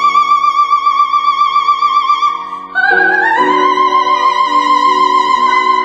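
Soprano holding a long high note with wide vibrato over sustained piano chords, then scooping up into a second long high note about three seconds in: the final cadence of the romance.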